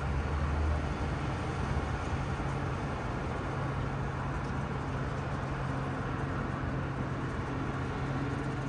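Steady rumble of vehicle traffic with a low, even engine hum.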